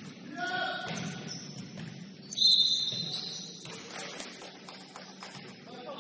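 Gym sounds of a basketball game in play: scattered knocks and short high squeaks. About two and a half seconds in, a loud, high, steady tone lasts about a second.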